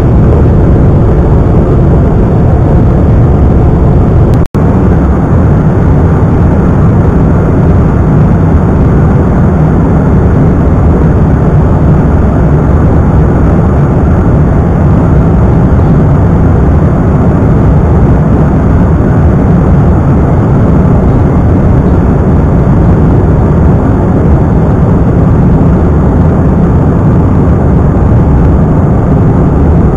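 Steady roar of a twin-engine regional jet's engines and airflow heard inside the passenger cabin during the climb after takeoff. The sound drops out for an instant about four and a half seconds in.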